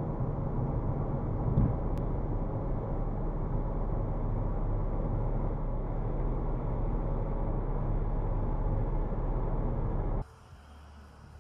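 Steady road and engine noise inside a car driving at freeway speed, with a constant low drone. It cuts off abruptly about ten seconds in, leaving a much quieter background.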